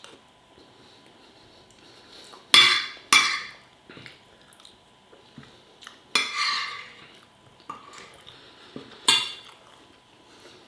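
Cutlery clinking and scraping against a plate during a meal. Four louder strikes that ring briefly, two close together about two and a half to three seconds in, a longer scrape about six seconds in and another strike about nine seconds in, with faint small clicks between them.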